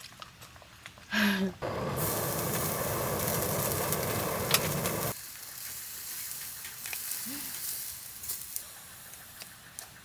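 Beef sizzling on a small wire grill over a portable butane gas burner, loud for about three seconds and then cutting off suddenly, leaving a quieter hiss with a few light clicks.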